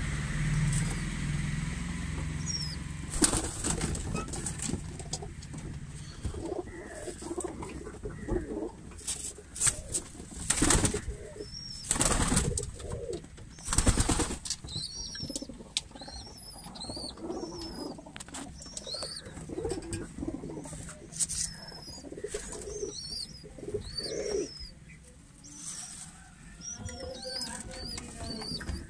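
Domestic pigeons in a loft cooing, with repeated bursts of wing flapping, loudest about halfway through. Short high chirps come in the second half.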